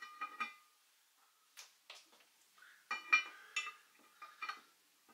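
A metal lid lifter clinking against the cast-iron lid and handle of a Dutch oven: a series of short metallic clinks with brief ringing. They are bunched near the start and again around three seconds in, with a few single clinks between.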